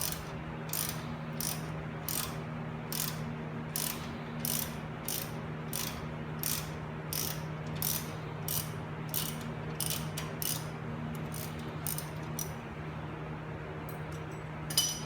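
Hand ratchet wrench clicking in steady strokes, about one and a half to two a second and quickening, while a bolt is turned on the front wheel hub. The strokes stop about ten seconds in, a few more follow, and there is one sharp metallic click near the end.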